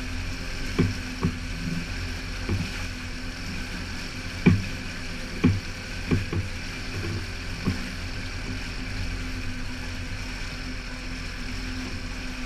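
Boat outboard motor running steadily under way, with water rushing past and irregular sharp thumps, several in the first eight seconds, fewer after.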